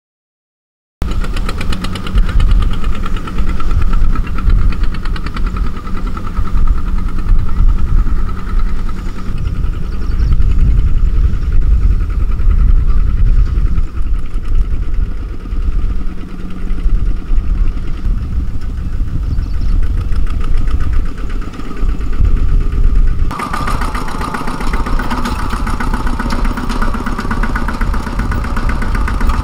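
Two-wheel walking tractor's single-cylinder diesel engine running with a rapid, even chugging beat. It starts about a second in, and its tone changes abruptly about 23 seconds in.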